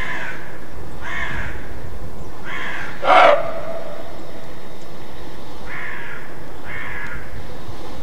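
Roe deer barking: a series of about six short barks roughly a second apart, the loudest about three seconds in. This is the roe's alarm call, the bark hunters call "Schrecken".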